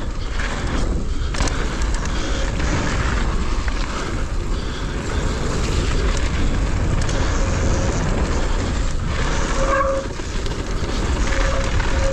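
Wind buffeting the microphone of a mountain biker's action camera, mixed with the bike's tyres rolling over a dirt and gravel trail during a fast descent.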